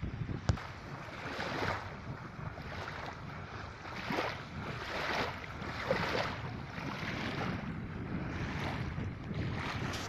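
Small waves lapping and splashing in the shallows, swelling about once a second, over a steady low rumble of light wind on the microphone. A sharp click about half a second in.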